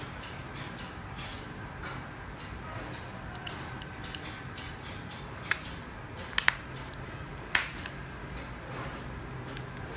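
Sharp plastic clicks of a car remote key fob being handled and snapped back together after a battery change: a single click about halfway through, a quick double click, then one more, over faint ticking about twice a second.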